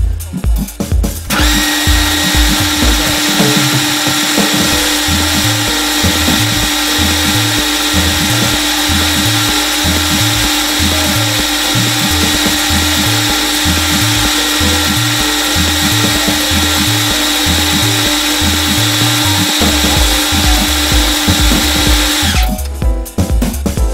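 Metal lathe running with its tool cutting a small brass flange: a steady motor tone with a cutting hiss above it, starting about a second in and stopping about a second and a half before the end. Background music with a repeating bass line plays underneath.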